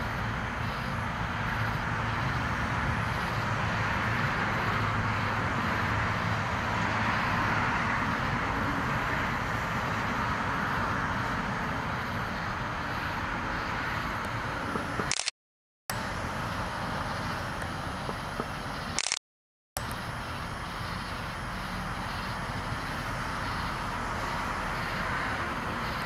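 Steady background hiss and hum with no distinct events, cut by two brief dropouts to silence in the second half.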